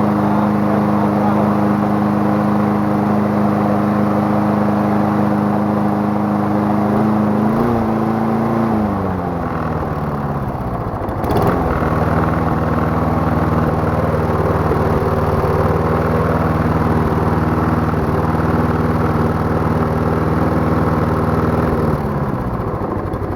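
Briggs & Stratton mower engine running steadily. About eight seconds in, its speed falls over a few seconds to a lower steady speed, with a brief click, and it slows again near the end. This is the engine being switched between the two speed settings of a makeshift paper-clip throttle linkage.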